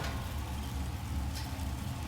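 A steady low mechanical rumble with a faint hiss over it.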